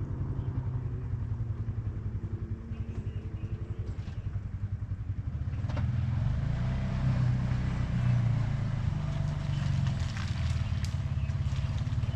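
Side-by-side UTV engine running at low revs as it crawls over rocks, with an even pulsing beat. It gets louder about six seconds in as the vehicle comes closer, with a few sharp clicks and clatter.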